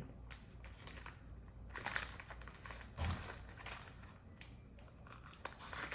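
Faint crinkling and crackling of a candy pack being handled, in a few short bursts.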